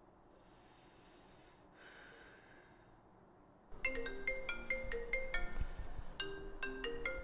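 Smartphone ringtone for an incoming call: a quick melody of short, tinkling notes that starts about halfway through and keeps repeating.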